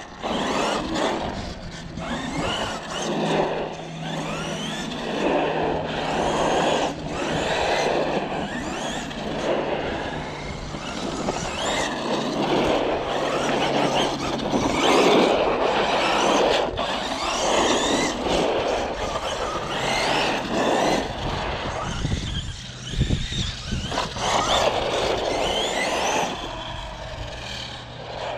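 Arrma Kraton EXB RC truck driving on a 4S battery, its Castle 1717 brushless motor whining up and down in pitch with the throttle over a rough rushing noise.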